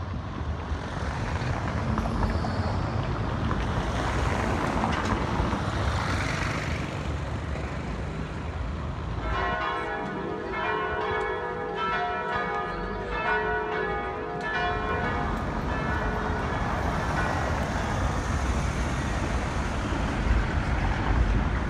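City street traffic with passing cars. About nine seconds in, church bells ring several notes over it for around six seconds, then fade, leaving the traffic.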